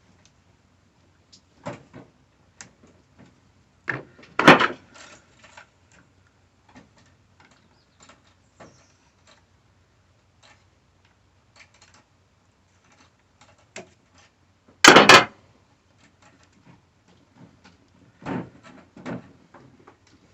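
Intermittent knocks, clicks and clatter of hand tools and parts as a car radiator is unfastened and worked loose, with two loud clunks about four and fifteen seconds in.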